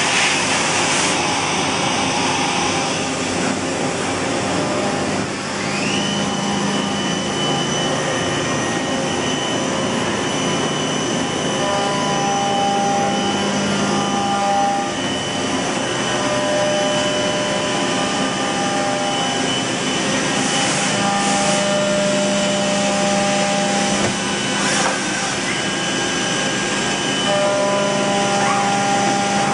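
Mazak Integrex-200IV ST CNC turning center running with a steady mechanical hum and hiss. About six seconds in, a high whine rises and then holds, like a spindle coming up to speed. Lower tones start and stop several times over it.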